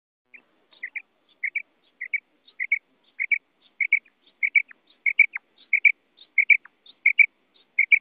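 Female common quail calling: a short two-note call repeated steadily about every two-thirds of a second, with a few longer falling notes mixed in midway.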